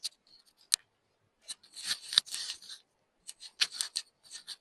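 Irregular short scrubbing and scraping strokes on the metal parts of an EK43 coffee grinder being cleaned by hand, with a sharp click about three-quarters of a second in.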